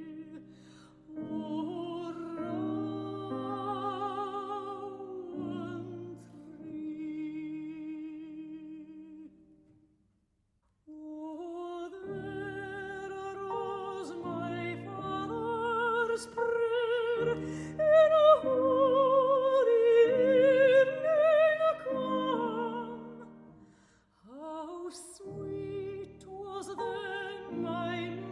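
Music: a singer with wide vibrato over sustained instrumental accompaniment, operatic or classical in style. It breaks off for about a second about ten seconds in, and dips briefly again near the end.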